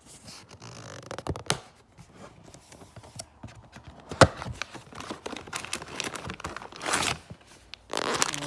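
Pop Mart blind-box packaging being opened by hand: paper and plastic tearing and crinkling in scattered bursts, with one sharp click about four seconds in.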